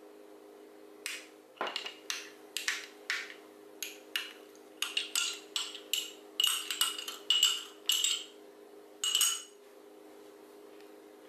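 A spoon clinking against a small glass jar and china bowl: an irregular run of light, ringing clinks over about eight seconds as beaten egg is spooned into milk and the jar is handled.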